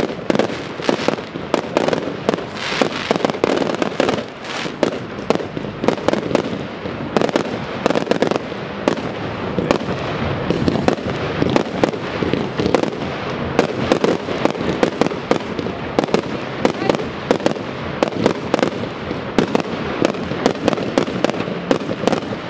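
Aerial fireworks bursting in a dense, continuous barrage of bangs and crackles, many reports a second with no let-up.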